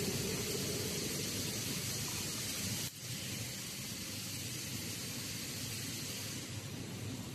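Steady hiss of workshop machinery, broken by a sudden brief drop about three seconds in.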